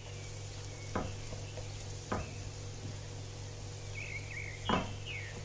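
Chopped onion frying in butter and oil in a pan, a soft steady sizzle, with three knocks of a utensil against the pan, the last and loudest near the end. A few short high chirps come just before it.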